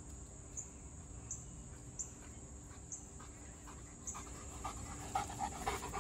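Cane Corso panting quickly. The panting grows louder over the last two seconds as the dog comes close.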